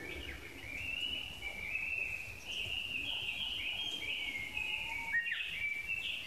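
A songbird singing a long, unbroken warbling song of quick high notes, with a few sharp downward sweeps about five seconds in.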